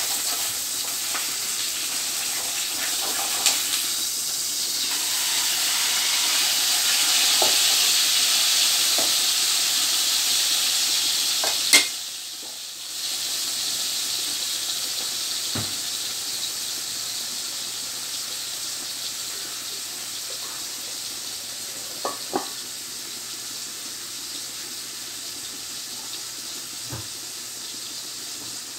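Chicken and pork adobo sizzling in its vinegar-and-soy sauce in a wok, a steady hiss. About twelve seconds in there is one sharp clack, and the sizzle drops out for a moment, then comes back softer. A few light knocks follow later.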